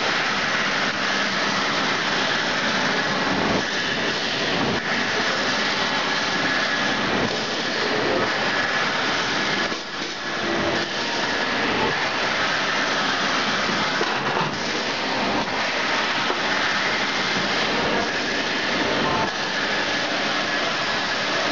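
Servo-driven bag-on-roll making machine running: a steady, dense mechanical clatter of many small rapid clicks from its sealing, cutting and automatic winding units.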